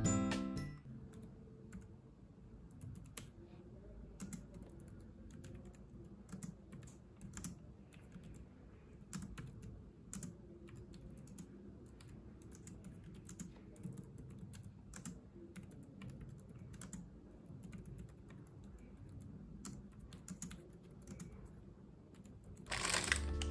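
Typing on a Logitech K380 Bluetooth keyboard: quiet, irregular key clicks, several a second. Music comes in near the end.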